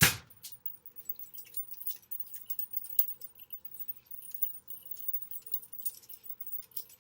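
One sharp knock, then light scattered clicks and taps of a metal fork as potatoes are pricked and handled.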